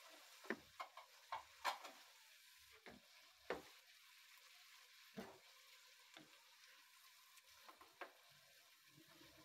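Wooden spatula stirring minced meat in a non-stick wok: a faint, irregular string of short scrapes and taps, thicker in the first few seconds, over a faint sizzle of frying.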